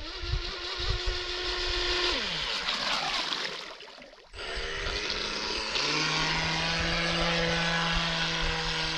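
Radio-controlled boat's motor whining at speed; its pitch drops about two seconds in, it cuts out briefly just after four seconds, then it holds a steady high whine.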